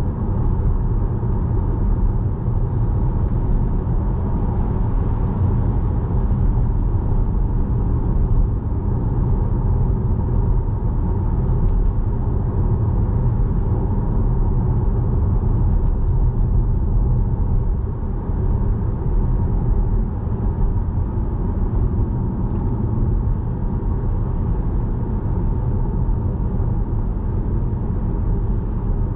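Steady low rumble of a car driving at road speed, heard from inside the cabin: engine and tyre noise on a dual carriageway.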